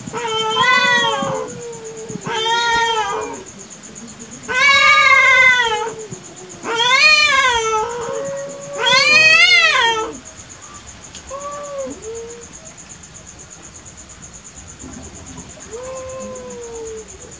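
Domestic tabby cats in a face-off yowling at each other. Five long, wavering caterwauls in the first ten seconds, each rising then falling in pitch, then a few short, quieter calls. The sound of a territorial standoff.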